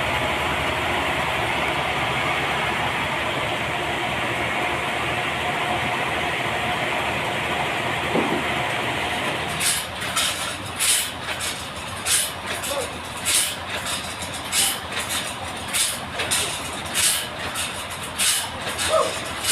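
Sawmill saw running through a trembesi (rain tree) log with a loud, steady noise. About halfway through, the steady sound drops away and a rhythm of short hissy pulses follows, about one and a half a second.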